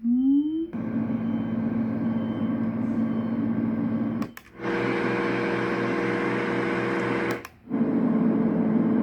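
LectroFan white noise machine playing steady fan-like whooshing noise with a low hum, switching to a different sound twice, each switch marked by a brief gap, about four and a half and seven and a half seconds in. A short rising tone sounds at the very start.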